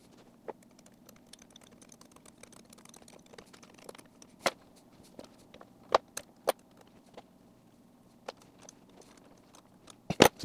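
Small wrench and carburettor throttle-linkage parts clicking and clinking, metal on metal, as the linkage is bolted up. The clicks are scattered and irregular, with a few sharper knocks and a quick run of clicks near the end.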